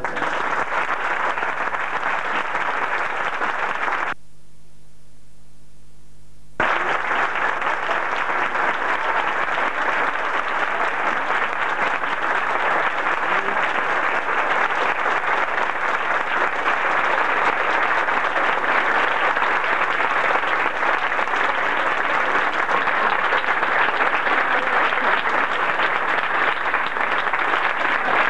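Audience applauding in a long, steady round of applause after the music ends. The applause breaks off for about two seconds a few seconds in, then resumes at the same level.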